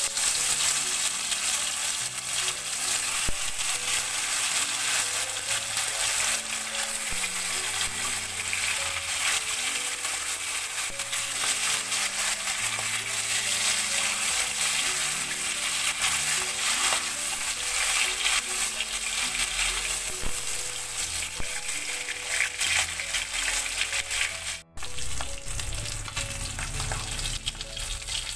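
Silver carp steaks sizzling steadily as they fry in hot oil in a kadai, a metal spatula moving them in the pan. The sound cuts out for an instant once near the end.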